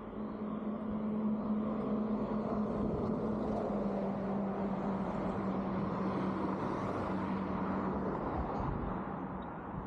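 A vehicle passing along the street, its noise swelling over several seconds and easing off near the end, over a steady low hum.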